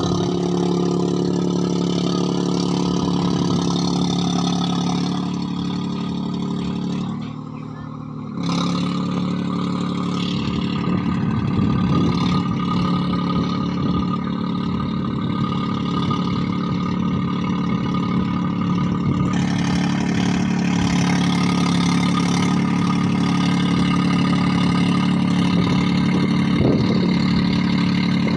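Tractor engine running without a silencer, its open exhaust loud and steady as it pulls a rotavator through a flooded paddy field. The engine sound dips briefly about seven seconds in, then returns at full level.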